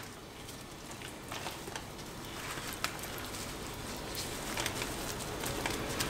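Faint, soft handling sounds of marinated flank steak being laid out on paper towels and pressed flat with gloved hands, with a few light ticks.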